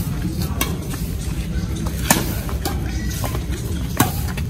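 Badminton rackets striking a shuttlecock in a rally: three sharp hits, each about one and a half to two seconds after the last, the middle one the loudest. A steady low rumble underlies them.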